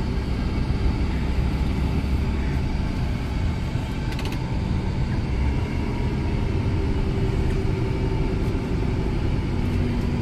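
Steady drone of a Scania semi-truck's engine and tyres, heard from inside the cab as it drives down a winding mountain grade.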